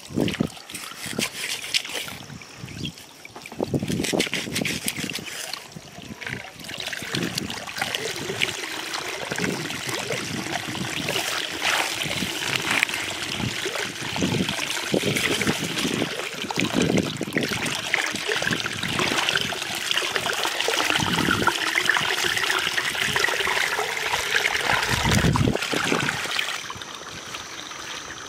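Sickle blade cutting and crunching through grass and soil in the first few seconds, then muddy water splashing and trickling in a small hole dug into a field bank as it is churned by hand.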